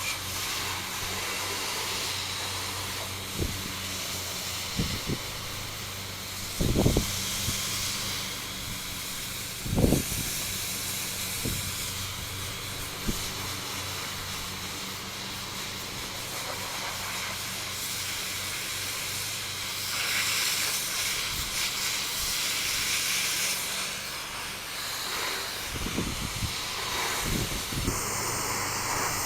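Water spray from a pressure-washer rinse hissing steadily, with a constant low hum underneath and a few brief low thumps.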